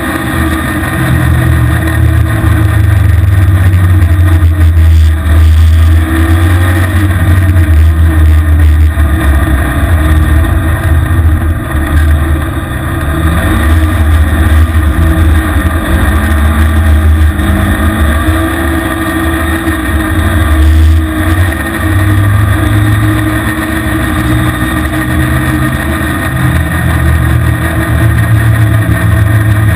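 Engine of a small off-road vehicle running under way, its pitch rising and falling with the throttle, over a loud steady low rumble of wind on the camera microphone.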